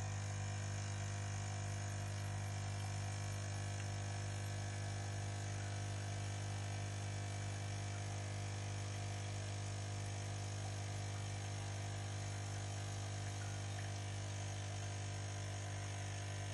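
Steady low electrical hum with a faint hiss, unchanging in pitch and level throughout.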